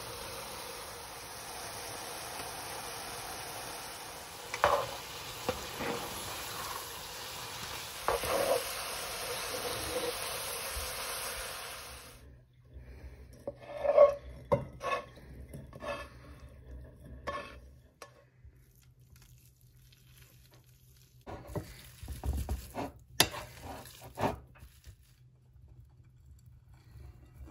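Food sizzling in a frying pan, stirred with a utensil that knocks and scrapes against the pan. About twelve seconds in the sizzle stops suddenly, and scattered clinks and knocks of utensils and dishes follow.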